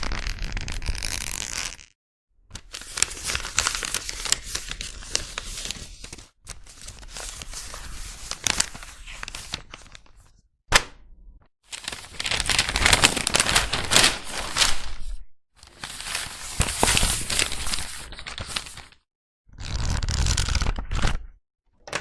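Paper sound effects: sheets of paper crumpled, rustled and torn, in a run of separate takes one to four seconds long with short silent gaps between, and one sharp snap near the middle.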